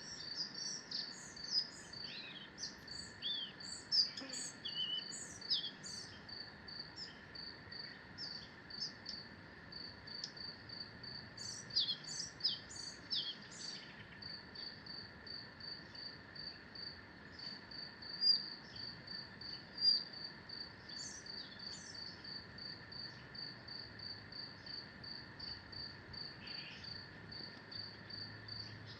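Forest birds singing, short chirps and whistled phrases that come thickest in the first half and only here and there later, over a steady, evenly pulsed high insect chirping.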